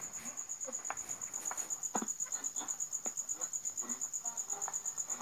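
A cricket chirping steadily in fast, even pulses, with a few faint clicks and short faint tones from the opened transistor radio.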